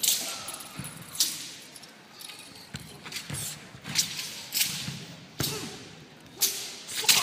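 A martial artist's sharp stomps and strikes during a weapons form, echoing in a large hall. About seven irregular impacts, the loudest near the end.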